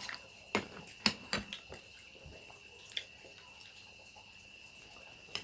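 Scattered light clicks and taps with water dripping, about five sharp ones in the first three seconds, over a faint steady high-pitched tone.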